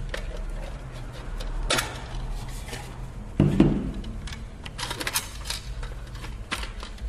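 Scattered clicks and light taps of small plastic and metal parts being handled on the opened PS3 Blu-ray drive, with one duller knock about three and a half seconds in.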